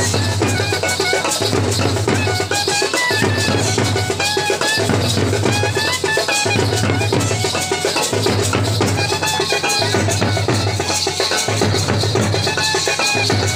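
Festival drum band playing a fast, steady rhythm on large strap-hung drums. A high melody line runs over the drumming, and a low note pulses on and off about every second and a half.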